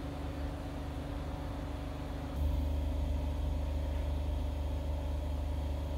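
Low steady rumble of road traffic, growing louder about two and a half seconds in and holding there.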